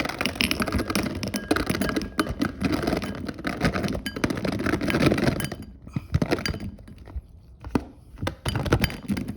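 Gushers fruit snacks poured into a container: a dense clatter of many small pieces landing for about five seconds, then a few scattered knocks as they settle and are handled.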